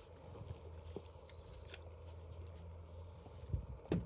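Scattered small knocks and rubs, with two louder thumps near the end, over a faint low hum.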